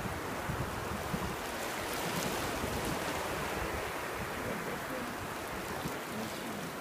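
Shallow surf foaming and washing over wet sand at the water's edge, a steady hiss.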